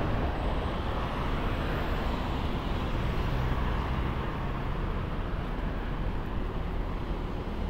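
Steady road traffic: cars and vans driving past on a multi-lane road, a continuous sound of engines and tyres.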